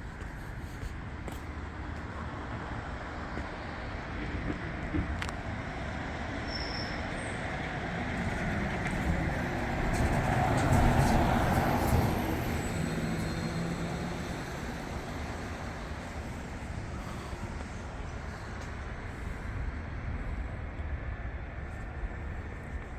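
A vehicle passing by over a steady city hum. It grows louder toward the middle and then fades away.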